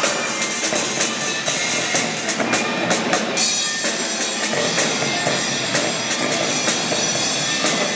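Rock band playing live: a drum kit keeping a busy beat with frequent cymbal hits over electric guitars.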